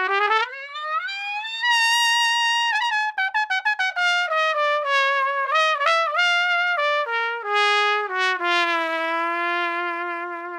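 Solo trumpet: a long rising glissando from a low note up to a high held note, played with the valves pressed about halfway down, then a quick downward run of smeared, bent notes ending on a long low note.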